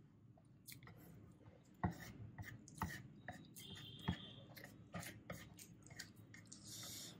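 Close-up eating sounds of Maggi instant noodles being chewed, with wooden chopsticks clicking and tapping against the board and dish. A few sharper taps stand out about two, three and four seconds in, and a brief hiss comes near the end.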